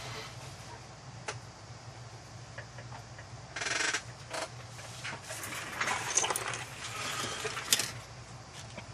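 Plastic model-kit parts and the kit's paper instruction sheet being handled on a workbench: scattered clicks and light rattles of small plastic pieces with short rustles, sparse at first and busier in the second half.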